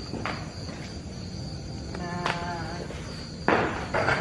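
Crickets chirring steadily at night. Near the end comes a sudden loud rushing burst, and about halfway there is a short pitched call.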